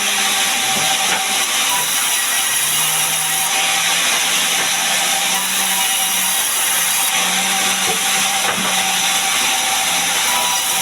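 Large sawmill saw cutting a gmelina log into planks, a steady, loud hissing whine of the blade through the wood, with a low machine hum underneath.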